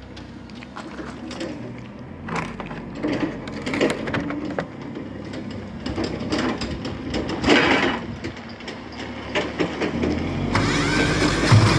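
Irregular knocking and clattering of hands handling the Kipor KDE 6700TA diesel generator, then near the end its single-cylinder diesel engine cranks and fires up.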